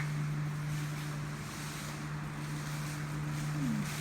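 A steady low hum over a continuous hiss, with a short low falling sound near the end.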